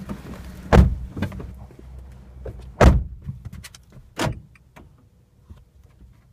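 Several loud thumps and knocks inside a car cabin, the two biggest about a second and three seconds in, over a low rumble that dies away after about four seconds.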